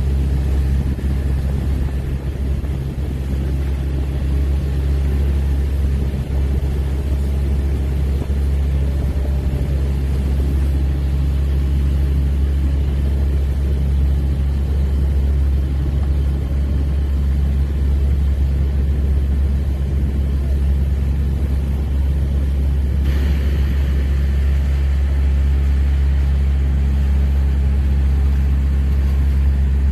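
Boat outboard motor running steadily at planing speed, a low drone with rushing water and wind over it.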